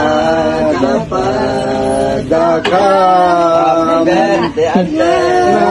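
A voice singing slow, long held notes, each lasting a second or two with short breaks between.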